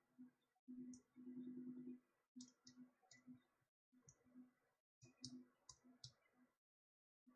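Faint clicks of a Garmin Fenix 5 watch's buttons being pressed repeatedly to step through its menus, with a low buzz coming in short bursts between the clicks.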